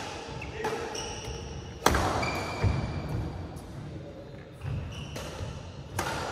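Badminton rackets hitting a shuttlecock during a rally: sharp cracks about half a second in, just before two seconds (the loudest, echoing in the hall) and again near the end, with short squeaks of shoes on the court between the shots.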